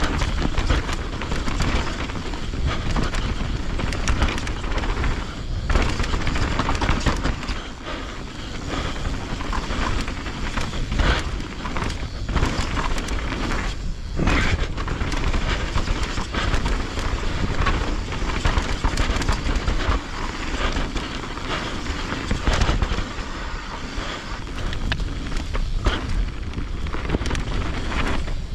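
Mountain bike ridden over rough trail: a steady heavy rumble, with frequent sharp knocks and clatter from the bike jolting over rocks and bumps.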